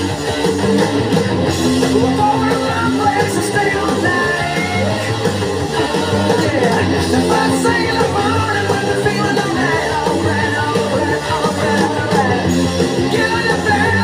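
Hard rock recording playing from a vinyl record: electric guitar with a male lead vocal, at a steady loud level.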